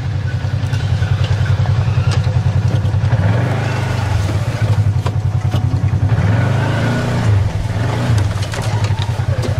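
Side-by-side UTV engine running at low revs with a steady pulsing note, revving up and back down twice in the middle.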